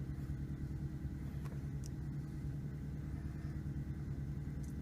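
Steady low mechanical hum with an even pitch, unchanging throughout, with a couple of faint small clicks.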